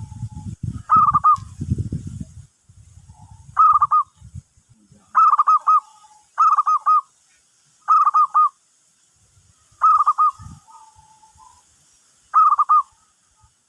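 Zebra dove (perkutut) cooing: a quick run of three or four notes, repeated about seven times, with softer single notes in between. A low rumbling noise sounds in the first couple of seconds, and a low thump comes about ten seconds in.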